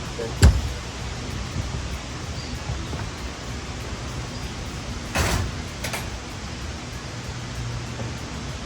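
A few sharp knocks over a steady low hum. The loudest knock comes about half a second in, and two more come around five to six seconds in.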